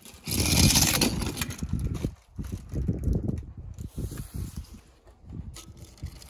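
Die-cast toy car rolling down a ramp covered in glitter paper, its small plastic wheels rattling on the rough surface, then knocking in among plastic balls in a tub. Light clicks of a toy car set down on a mat near the end.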